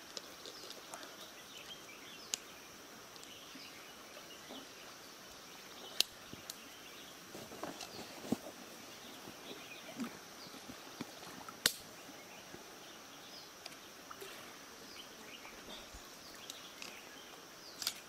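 Shallow stream water running, with scattered splashes and a handful of sharp knocks at irregular moments as a man wades and feels among the rocks for fish by hand.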